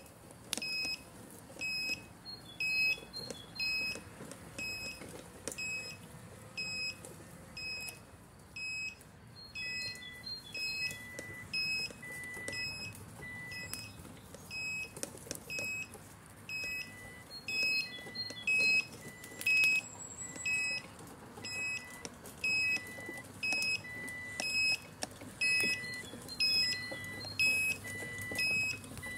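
Remote-controlled mower's warning beeper sounding a steady train of short high beeps, a little faster than one a second. From about a third of the way in, a second, lower beep joins, falling between the first ones, over a faint low running noise.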